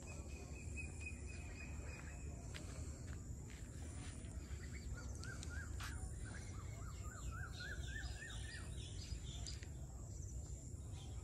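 Birds calling in farmland. A held high note comes first, then two runs of short rising chirps at about four or five notes a second through the middle, over a steady high-pitched drone and a low rumble.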